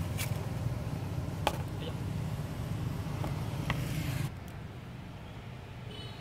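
Motorbike engine idling low and steady, with a few sharp clicks over it. It cuts off suddenly about four seconds in, leaving only a faint hiss.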